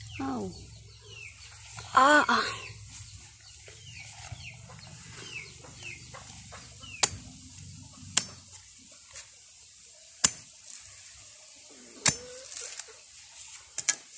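Chickens clucking and calling, with a loud wavering call about two seconds in and small high chirps scattered throughout. From about seven seconds in come four or five sharp knocks, and a low hum fades out after about eight seconds.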